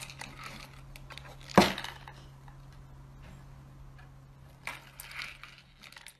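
A cat pawing at a small cardboard box and tipping it on a wooden tabletop: light scraping and rustling of the cardboard, with one sharp knock about a second and a half in and a few softer knocks near the end, over a faint steady low hum.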